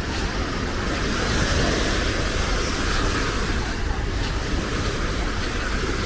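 Steady wash of small waves breaking on a sandy beach, with wind rumbling on the microphone.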